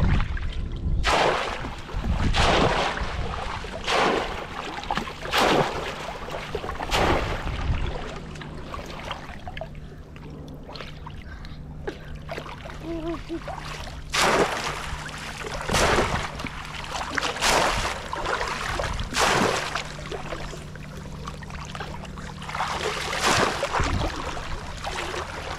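Splashing in shallow floodwater as a person wades and slaps the water by hand, in loud bursts about every second and a half, with a quieter stretch in the middle.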